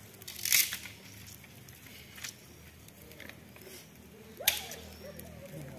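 Salt shaken from a plastic bottle over raw pork in a steel pan, a short hiss about half a second in, then a single sharp snap about four and a half seconds in.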